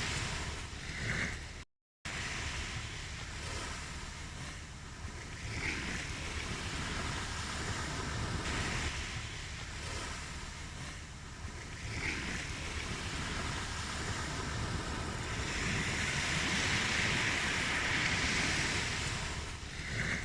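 Ocean surf: waves washing in and receding, the hiss swelling and easing every few seconds. The sound cuts out completely for a moment about two seconds in.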